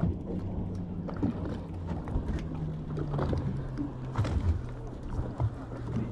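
Boat engines idling with a steady low hum, with scattered light knocks and clicks over it.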